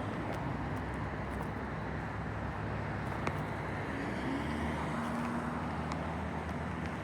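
Steady low rumble of motor vehicle noise with a constant outdoor background hiss, and a faint whir joining about four seconds in.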